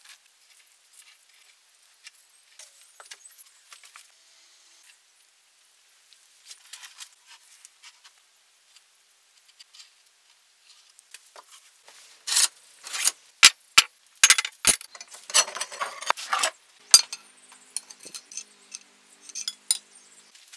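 Handling noises: faint scattered clicks and rustles, then from about twelve seconds in a few seconds of loud, sharp clinks and rattling, like hard objects knocked together, before it settles back to light clicks.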